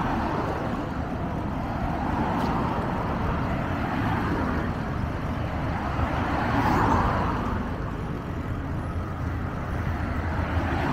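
Steady road traffic noise from passing cars, with wind rushing on the microphone of a moving bicycle. It swells loudest about seven seconds in.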